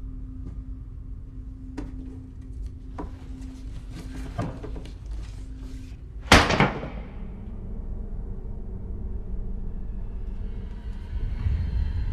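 Film sound design: faint scattered ticks and creaks over a steady low hum, then one sudden loud bang about halfway through with a short ringing tail. A low rumbling drone builds after it.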